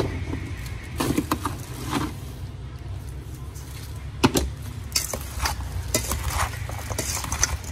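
Mixing sounds from a stainless steel bowl: a spoon clinks and scrapes as chopped fruit is tossed with seasoning, and a plastic container lid is handled. There are scattered clicks, one sharp knock about four seconds in, and a steady low rumble underneath.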